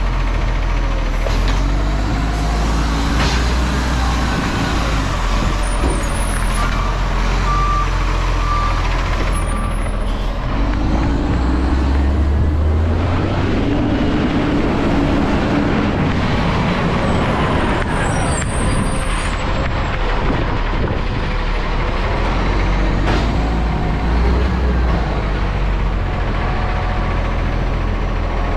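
Garbage truck's engine running and revving up and down, with short air brake hisses and a brief run of reversing beeps about a third of the way in.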